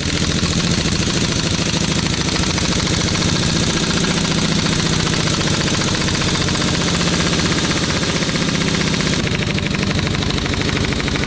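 Pneumatic impact wrench hammering steadily on a harmonic balancer puller bolt, a fast continuous rattle that fails to break the balancer loose: the gun is short on air pressure.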